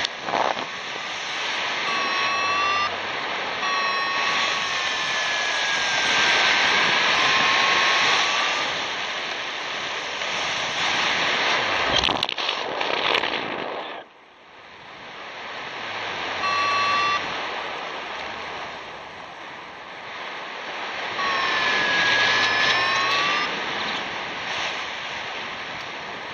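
Airflow rushing over the microphone in paraglider flight, with a variometer's electronic tones sounding several times, some held steady and some sliding down and back up in pitch. A few knocks come about twelve seconds in, and the rushing drops off suddenly just after, then builds again.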